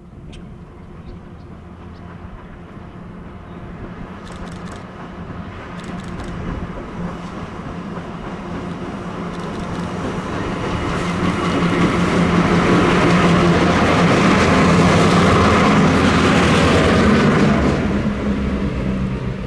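Three EMD GP38-2 diesel locomotives, with Roots-blown 16-cylinder 645 engines, pulling an empty coal train, their exhaust barking. The sound grows steadily louder as they approach, is loudest about two thirds of the way in, and eases off near the end as they pass.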